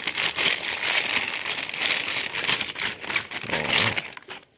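Plastic mailer bag crinkling and rustling as a hand rummages inside it and pulls the contents out. The crinkling dies away about four seconds in.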